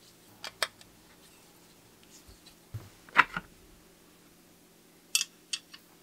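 Metal bicycle crank parts and tools being handled: a few sharp clicks and knocks, a pair about half a second in, the loudest about three seconds in, and a quick run of three or four near the end, over a faint steady hum.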